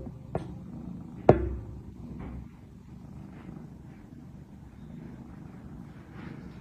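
Cats purring: a low steady rumble, with a few sharp taps, the loudest about a second in.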